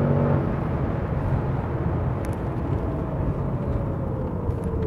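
Inside the cabin of a Range Rover Sport SVR at about 190 km/h: the supercharged V8's steady engine note cuts off about half a second in as the throttle is released. After that, heavy road and wind noise fills the cabin, and a faint whine falls steadily in pitch through the last two seconds as the car slows under hard braking.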